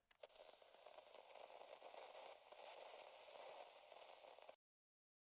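Faint steady hiss with a few clicks at the start, cutting off suddenly to silence about four and a half seconds in.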